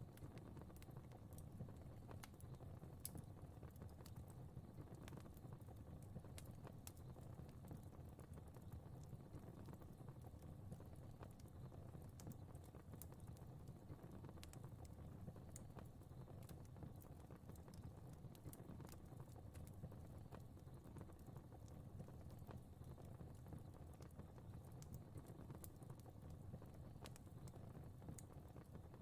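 Fire crackling faintly: irregular small pops and snaps over a low, steady rumble of flames.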